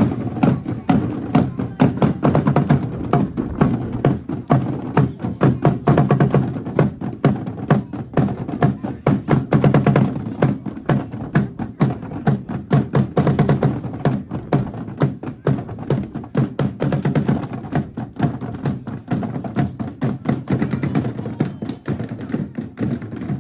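Band music with rapid, sharp drum and percussion strikes over sustained low pitched tones.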